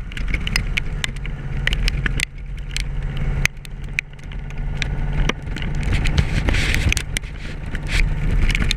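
A Yamaha Royal Star's V4 engine running at road speed, heard from the rider's seat along with wind rush and scattered sharp clicks. The engine sound drops briefly twice, about two seconds in and again about three and a half seconds in.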